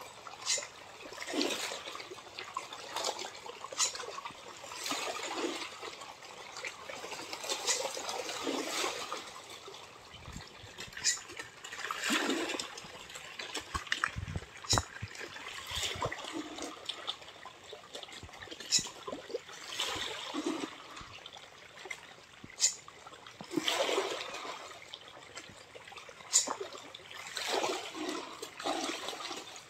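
A dense school of pangasius (striped catfish) thrashing and splashing at the surface of a pond: a continuous, uneven churn of water with sharp slaps now and then.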